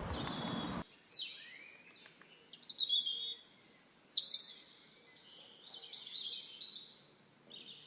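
Birdsong: a songbird's repeated high chirps and short gliding whistled phrases over a clean, quiet background. Under a second in, a stretch of steady outdoor noise cuts off suddenly as the song takes over.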